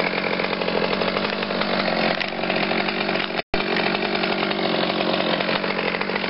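Chainsaw running steadily as its chain tears into a cut-protection glove, shredding the fabric; the glove does not stall the chain and the saw keeps running. The sound drops out for an instant about halfway through.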